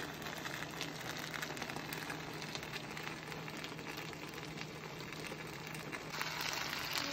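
Fried rice with chicken and shrimp sizzling steadily in a nonstick frying pan on an induction hob, a fine crackle that grows louder about six seconds in.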